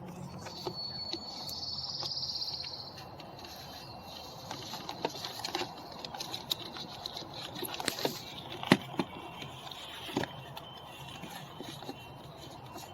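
Light clicks and knocks of hands and a screwdriver working on the plastic window-switch assembly of a car door panel, with one sharp knock a little past the middle. A high buzzing note sounds for about two seconds near the start.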